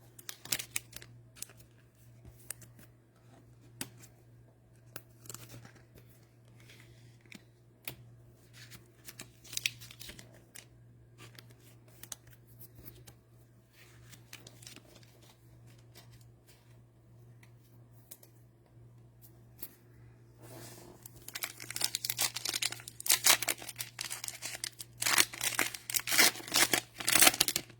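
Cellophane wrapper of an NFL Mosaic cello pack being torn open and crinkled, with loud dense crackling in the last seven seconds, after scattered small clicks and rustles of handling.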